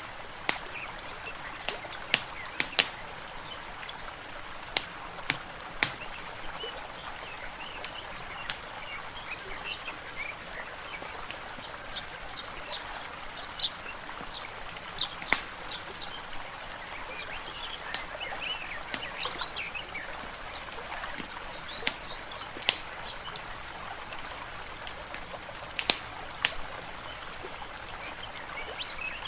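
Layered nature ambience: a wood fire crackling with scattered sharp pops, over a steady wash of water and birds chirping.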